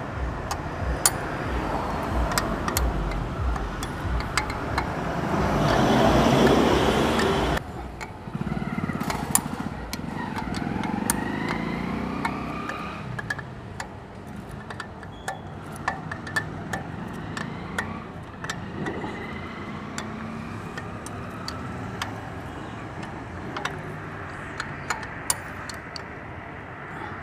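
Road traffic passing, loudest about six seconds in and cutting off suddenly just before eight seconds. Scattered sharp clicks run through it: a spoke wrench working the spoke nipples of a motorcycle's wire-spoked rear wheel as loose spokes are tightened.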